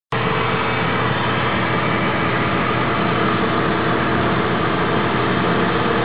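Honeybee colony buzzing: many bees on open comb making a steady, dense hum.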